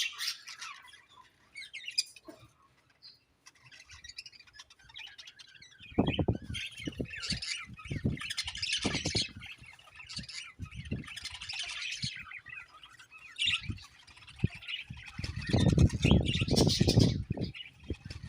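Budgerigars chirping and chattering, many quick high chirps overlapping, sparse at first and then busier. Bursts of low thumping and rumbling come in about six seconds in and again near the end.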